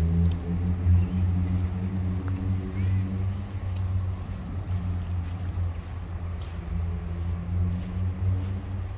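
A motor vehicle's engine running with a steady low hum, easing off slightly in the second half.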